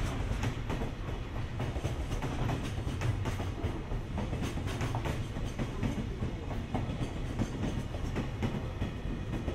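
Freight train hauled by an EH500 electric locomotive rolling past at steady speed: a continuous rumble of wheels on rail with many irregular clicks and clacks over the rail joints.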